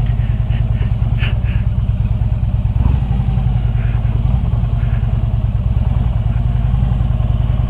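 Harley-Davidson V-twin motorcycle engine running steadily while riding, a low, pulsing rumble with a brief swell about three seconds in.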